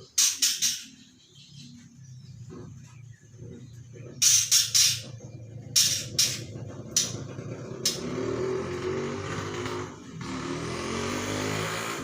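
Young white-rumped shama (murai batu) giving harsh, rasping notes in short clusters, three in quick succession at the start and four about four seconds in, then single ones. A steadier hissy rasp follows over the last few seconds.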